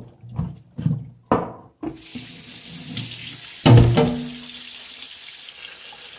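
Knocks of cut yam pieces and a glass bowl against a stainless-steel sink, then a kitchen faucet running steadily into the bowl of yam from about two seconds in. Partway through the running water comes one loud knock that rings briefly.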